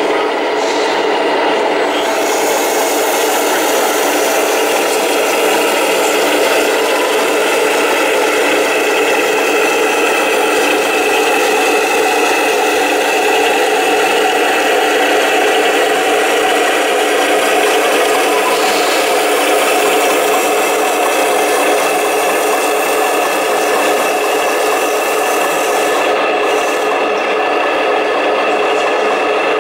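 Steady mechanical drone with rattling and scraping from a radio-controlled 1/14-scale tipper truck as its hydraulically raised body empties wood chips.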